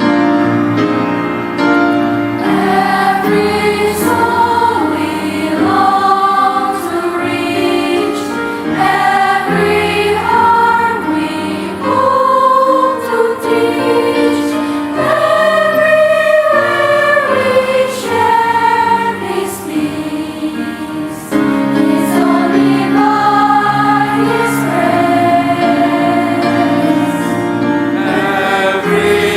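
Junior high school choir singing a Christian praise song in long, sustained phrases.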